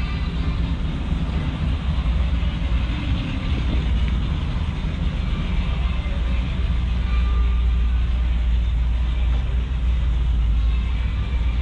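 Steady low rumble of a car engine running, growing a little stronger about halfway through.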